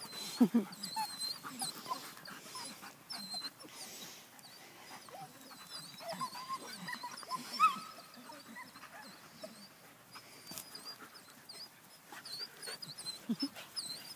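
German Shepherd puppies playing: small whines, yips and growls with panting, in short irregular bursts, with two sharper yips, one near the start and one about seven and a half seconds in.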